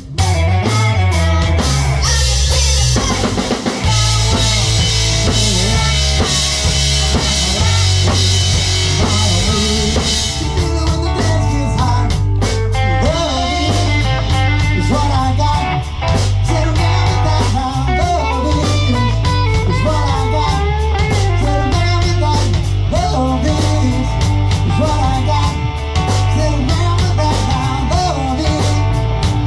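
Live rock band playing amplified through a PA: drum kit, electric guitars, bass and keyboard, with cymbals ringing out for several seconds early on.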